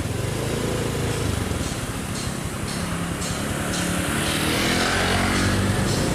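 Vehicle engine running and accelerating, its pitch climbing through the middle, with steady road and wind noise.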